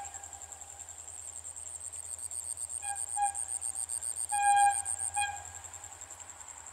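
Distant diesel locomotive horn: two short blasts about three seconds in, then a longer blast and a short one a little over a second later. Insects chirp in fast, steady pulses throughout and stop about five seconds in.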